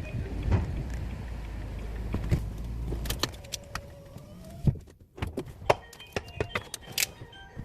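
Inside a parked car, a low steady hum cuts off about three seconds in. It is followed by a string of sharp clicks and light rattles, keys and cabin fittings being handled.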